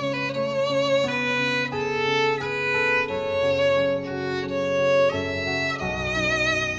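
Violin music: a melody of held notes with vibrato over sustained lower notes.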